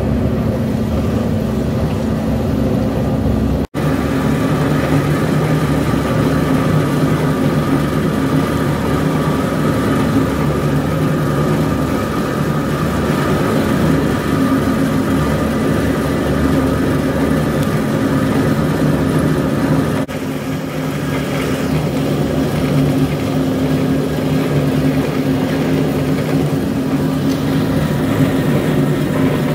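22 kW pellet mill running, pressing shredded municipal waste into refuse-derived fuel pellets: a steady mechanical drone that drops out for an instant about four seconds in.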